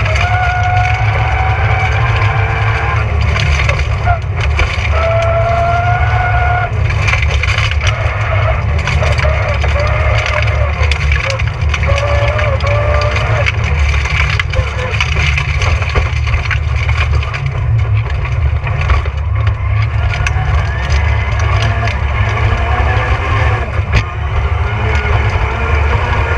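Rally car running flat out on a gravel forest stage: engine note rising and falling with the revs over a heavy, steady road rumble, with stones cracking and rattling against the underbody.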